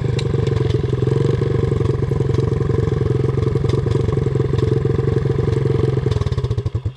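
Single-cylinder off-road motorcycle-type engine idling steadily at close range. Near the end it is switched off, its firing slowing and dying away to a stop.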